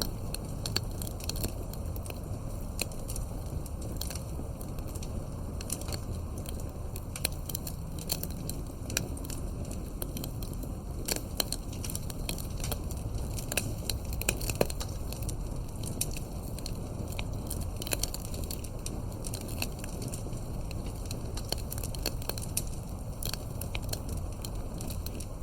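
Fireplace crackling: irregular pops and snaps over a steady low rumble.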